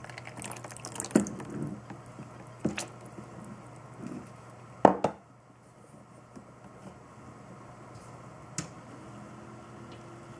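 Water-cooling fluid dripping and splashing as it is pushed by syringe into the tubing of an all-in-one liquid cooler being refilled, with a few sharp knocks, the loudest about five seconds in. A faint steady hum begins near the end.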